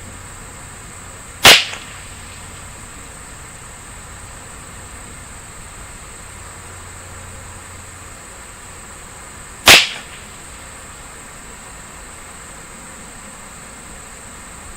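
Two shots from a Ruger 10/22 semi-automatic .22 LR rifle firing CCI standard velocity ammunition, about eight seconds apart, each a sharp crack with a short tail.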